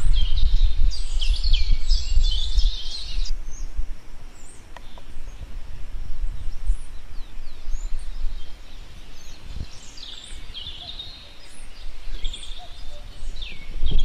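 Birds chirping and calling, a busy run of quick calls that breaks off sharply about three seconds in, a few scattered calls, then a busy run again near the end, over a low rumble.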